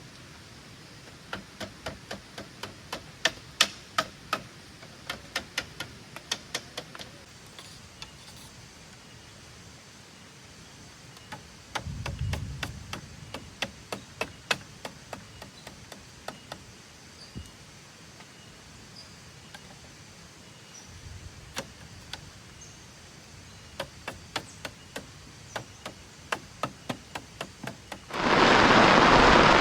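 Runs of sharp, quick blows from a hand tool striking bamboo, several a second, with a couple of duller thuds in between. Near the end, heavy rain noise comes in suddenly and loudly.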